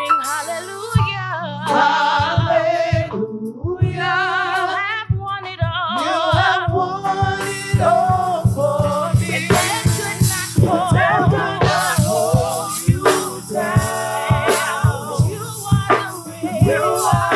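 Gospel worship song performed live by singers and a band. Wordless sung runs with heavy vibrato carry over keyboard chords, and drum-kit beats and cymbals build in about halfway through.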